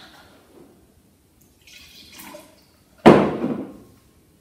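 Red wine being poured from a glass bottle into a wine glass, a faint splashing gurgle. About three seconds in comes a single sharp knock as the bottle is set down on the table.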